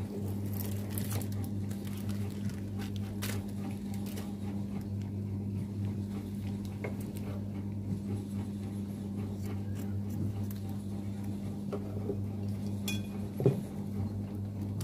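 Instant-noodle seasoning sachets being snipped open with scissors and handled over a ceramic plate: faint plastic rustling with scattered light clicks and clinks, a little sharper near the end. A steady low hum runs underneath.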